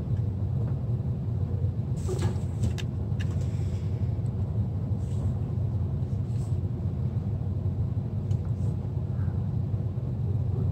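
Steady low rumble in the background, with a few light clicks and rustles as a clock radio's circuit boards are handled and turned over.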